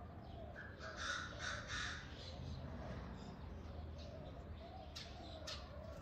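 A crow cawing three times in quick succession about a second in, over fainter birdsong. Two sharp clicks come near the end.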